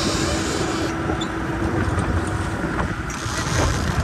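Speedboat running over open water, its engine a steady drone under the rush of wind and water, with wind buffeting the microphone.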